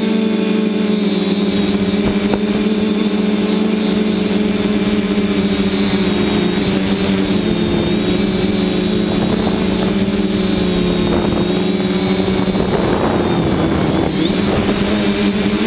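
Multirotor drone's electric motors and propellers heard from a camera on its own frame: a steady, loud buzzing hum with a high motor whine above it, wavering a little in pitch near the end as the drone manoeuvres.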